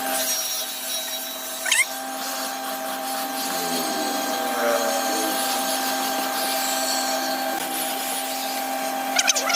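Dremel-type electric rotary tool running with a steady whine, its pitch sagging briefly about three and a half seconds in. A short sharp knock comes a little under two seconds in, and a quick clatter of knocks near the end.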